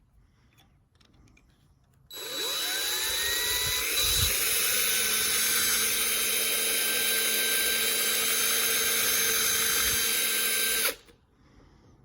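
Electric drill starting about two seconds in, its pitch rising as it spins up, then running steadily for about nine seconds before cutting off suddenly: drilling out a rivet on a die-cast toy car to take it apart.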